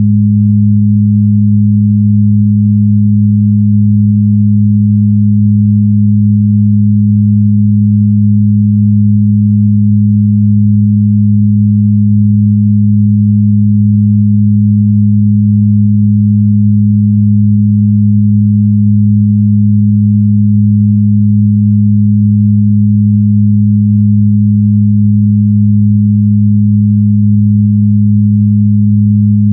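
Synthesized 'healing frequency' track: a loud, steady low electronic hum of two pure tones, one about an octave above the other, held without change.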